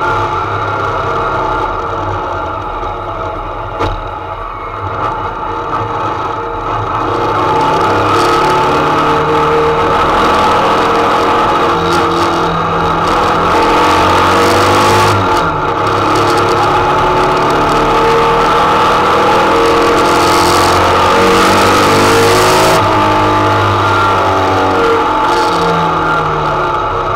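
Race-built 2.6-litre VW Type 4 air-cooled flat-four with Weber 48 IDA carburettors and a 4-into-1 header, heard from inside the 1303 Beetle's cabin under racing load. It runs lighter for the first several seconds, then pulls hard from about 8 s on, the revs climbing and dropping sharply at gear changes.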